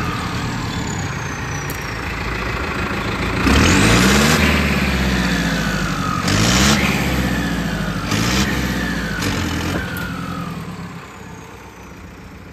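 Powertrac 7000+ tractor's diesel engine, newly fitted with a turbocharger, revved in four short bursts with a falling turbo whistle after them. It settles down quieter near the end.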